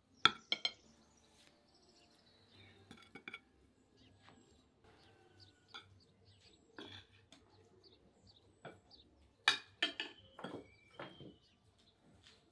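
Metal spoon and fork clinking against ceramic plates and a serving bowl: scattered sharp clinks with short rings, a cluster just after the start and another around ten seconds in, with softer scrapes between.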